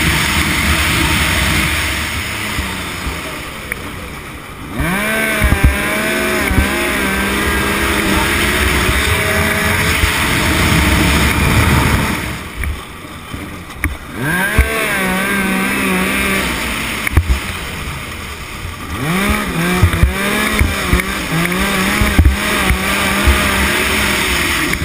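Yamaha Nytro RTX snowmobile's four-stroke triple engine racing under hard throttle, heard from the rider's seat over wind and track noise. It backs off about four seconds in, again around twelve seconds and briefly near nineteen, each time pulling back up with a rising whine, with occasional sharp bumps from the track.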